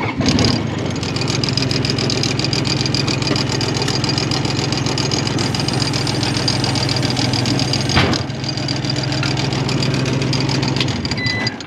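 Skid steer engine starting and running steadily for about eleven seconds, then shut off. This is a test run after replacing a hose. A steady warning beep sounds just before it starts and again briefly just before it stops.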